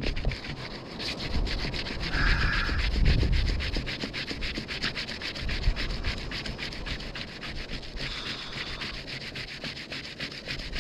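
A rolled bandage filled with charcoal is rolled hard back and forth between two flat pieces of wood under downward pressure. It makes a quick, even rubbing of several strokes a second, the friction that heats the roll until an ember forms for a fire.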